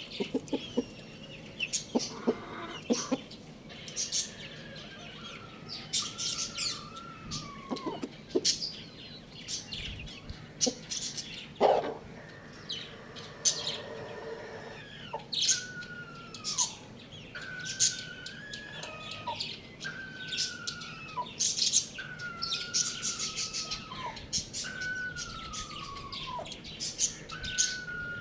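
A flock of small birds chirping rapidly, over a clear whistled call that falls in pitch and repeats about every two seconds, mostly in the second half.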